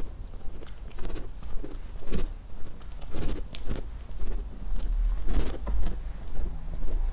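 Walking footsteps, irregular sharp scuffs about one or two a second, over a low rumble.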